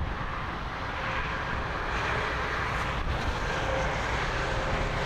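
Steady rushing noise of wind and passing highway traffic, with low buffeting of wind on the microphone; the rush swells slightly a couple of seconds in.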